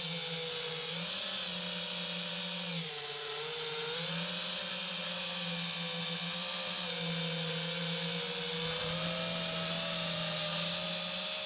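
FPV quadcopter's brushless motors whining steadily, the pitch dipping briefly about three seconds in and rising again as the throttle comes back up.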